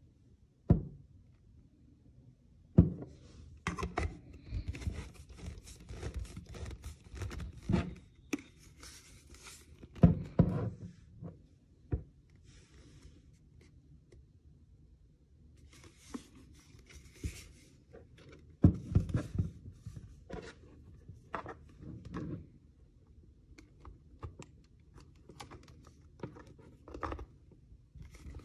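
Handling noise in a small room: irregular knocks and clunks with stretches of rustling and crinkling, like packaging and a small object being handled.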